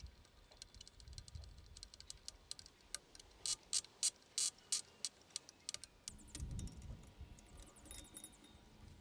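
Small metallic clicks and scrapes of a screwdriver turning a screw in the metal blade clamp of an antique treadle scroll saw, with a run of about six sharper clicks in the middle. A soft thud follows, then a quick patter of fine ticks near the end as the saw's wheel is handled.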